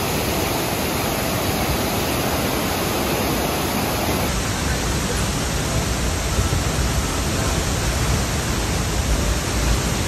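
Rushing water of a mountain stream tumbling over boulders, cutting about four seconds in to a powerful waterfall heard close up in its spray. The falls are loud, with much more deep rumble than the stream.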